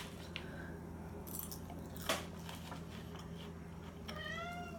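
A domestic cat meowing once, briefly, near the end, after a few faint clicks.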